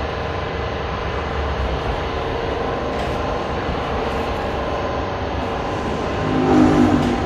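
Car-accessories shop ambience: a steady mechanical hum and noise with faint steady tones running through it. Near the end there is a brief, louder pitched sound.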